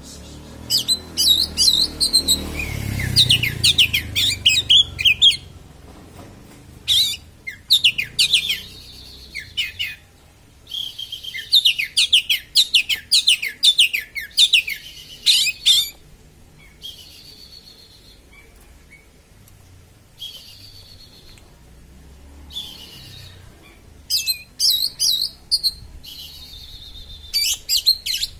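Oriental magpie-robin singing in bouts of rapid, sharp, high sweeping notes: the fast, piercing 'konslet' song style that keepers play to provoke their own magpie-robins. The bouts run from under a second to about five seconds, with short pauses between.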